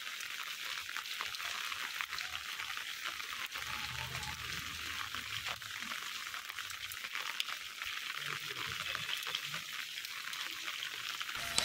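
Steady rain falling on wet pavement: an even hiss with many small drop ticks.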